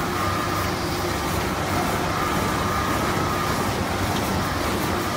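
Automatic band saw toilet-roll cutting machine running steadily as rolls are fed along its conveyor: an even mechanical drone with a thin steady whine over it.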